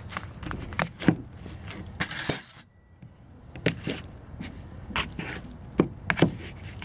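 Metal spoon and fork mixing raw chicken pieces with cornstarch on a paper plate: scattered light clicks and taps of the utensils against the plate and each other, with a short scrape about two seconds in.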